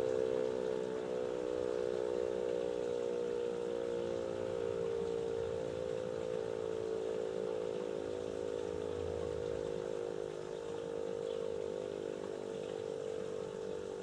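DS977 warning siren sounding the "Probe" test signal: one continuous held tone that sags slightly in pitch over the first few seconds and then holds steady. A faint low rumble lies under it near the middle.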